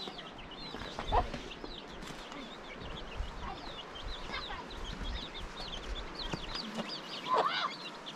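Chickens: chicks peeping over and over in short high chirps, and a hen clucking, with louder calls about a second in and again near the end.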